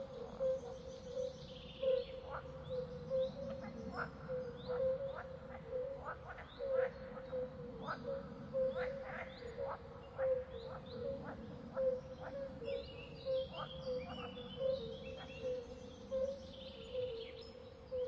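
Forest swamp ambience: birds chirping and calling over a steady, pulsing chorus on one low note, with many short sharp calls scattered through it.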